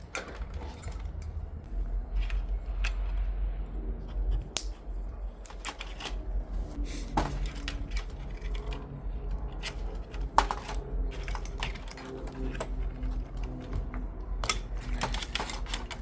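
Irregular metallic clicks, clinks and knocks of hand tools and loose parts as a dishwasher's heating element is unfastened, over a low steady rumble.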